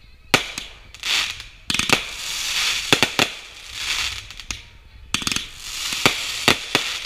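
Consumer aerial fireworks going off: a string of about seven sharp bangs as shells burst overhead, with swells of hiss between them.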